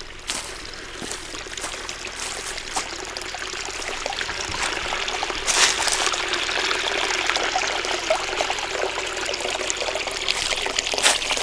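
Spring water trickling and pouring, flowing well. It grows louder over the first half and then runs steadily.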